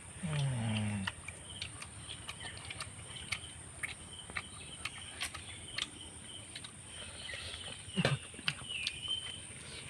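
A man's short exclamation falling in pitch just after the start, then scattered soft clicks of chewing and lip smacking as he eats chicken. Behind it run a steady high insect drone and occasional bird chirps, with one quick downward-sliding call about eight seconds in.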